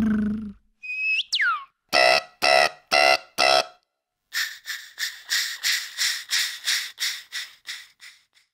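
Beatboxer's mouth-made sound effects: a short whistle-like tone sliding down in pitch, then four short even blasts about half a second apart, then a rapid run of hissy pulses at about four a second that fades out near the end.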